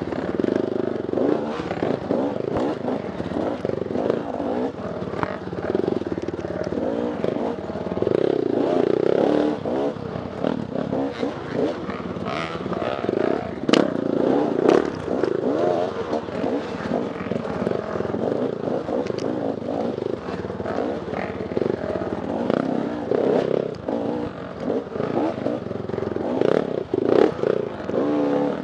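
Off-road dirt bike engine revving up and down continuously over rough ground, with frequent knocks and clatter from the bike and the terrain. There is a sharp crack about 14 seconds in.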